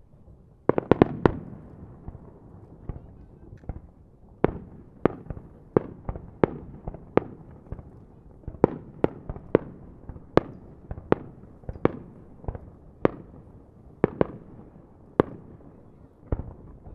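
Fireworks going off in a rapid series of sharp bangs: a quick cluster of about four reports a second in, then single bangs every half-second to second, each fading off briefly.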